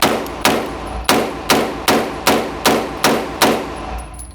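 Pistol-caliber carbine fired semi-automatically in a quick, even string: nine loud shots at about two a second, stopping about three and a half seconds in.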